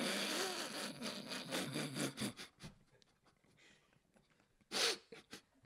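A man laughing in breathy, wheezing bursts, then going quiet, with one sharp burst of breath near the end.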